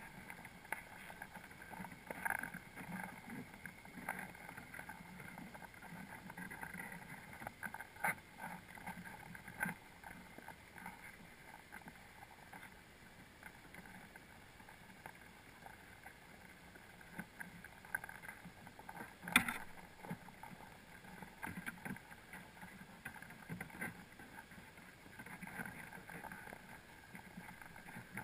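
Muffled underwater noise from a camera sealed in its waterproof housing on the sea floor: a steady faint wash with scattered small clicks and knocks, the sharpest about nineteen seconds in.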